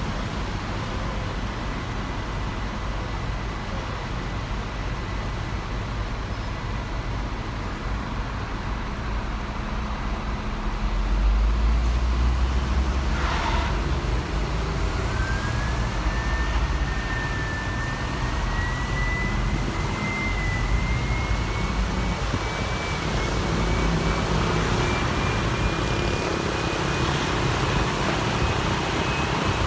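Riding aboard a city tour bus: steady engine and road noise, with the low engine rumble swelling about eleven seconds in as the bus pulls away. A thin whine rises slowly in pitch through the second half.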